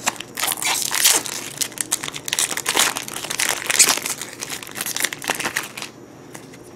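Foil wrapper of a Yu-Gi-Oh! Magic Ruler booster pack crinkling and tearing as it is pulled open and the cards are slid out. The crackling stops near the end.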